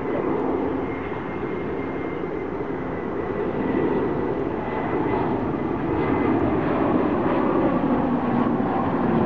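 Gulfstream business jet on approach with its gear down: the noise of its twin rear-mounted Rolls-Royce BR710 turbofans, a steady rush with a thin high whine over it, growing louder as the jet comes nearer.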